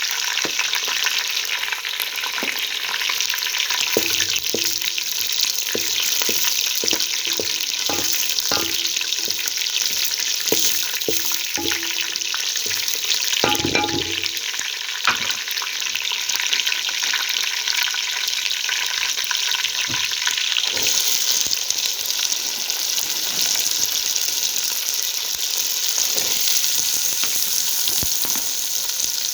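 Food sizzling steadily in a hot pan. A spoon stirs and knocks against the pan repeatedly from about 4 to 15 seconds in.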